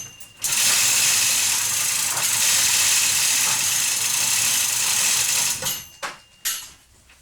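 A loud, steady mechanical running noise that breaks off briefly just after the start, then resumes and stops about five and a half seconds in, followed by a few sharp clicks and knocks.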